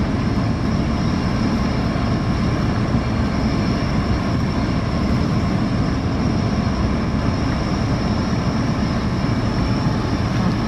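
Natural gas compressor station running: a loud, steady mechanical drone heavy in the low end, with a thin high whine held above it.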